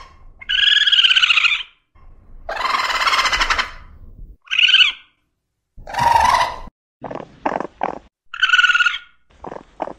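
Coati calling: a series of wavering high squeals, each up to about a second long, one longer and harsher call, and quick clusters of short chirps in the last few seconds.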